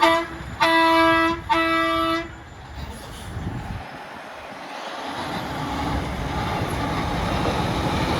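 Truck-mounted train horn sounding: the tail of one blast right at the start, then two more blasts of about a second each in quick succession. After the horn, the noise of a heavy truck's engine and tyres grows steadily louder as it approaches.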